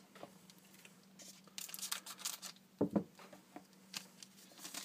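Trading cards and foil pack wrappers rustling and crinkling in gloved hands in short scattered bursts, with one sharper tap about three seconds in, over a faint steady hum.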